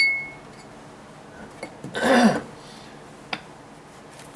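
Grinding wheels being handled: a sharp ringing clink at the start, a louder rough sound with a falling tone about two seconds in, and a light click near the end.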